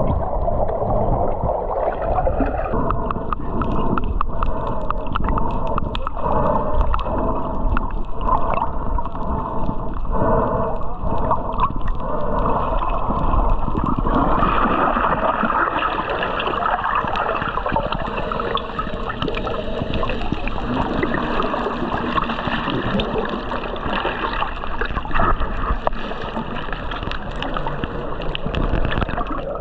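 Water gurgling and sloshing around the camera, with many small clicks, growing hissier about halfway through.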